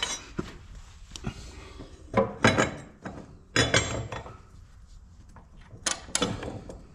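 Metal tools and mower-blade hardware clinking and clanking while a zero-turn mower deck blade is worked on: a handful of sharp, ringing knocks, irregularly spaced.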